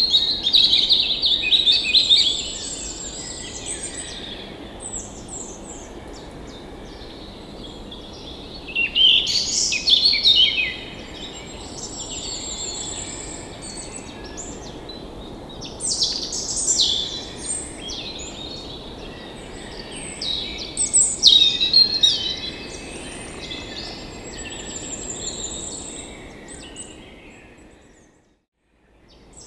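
Songbirds chirping and singing in bouts over a steady background hiss. The sound fades to silence near the end.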